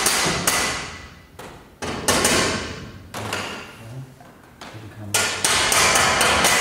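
Hammer blows knocking at the base of a steel cabinet to nudge it into position. The blows come in quick groups, each ringing briefly, with the longest rapid run near the end.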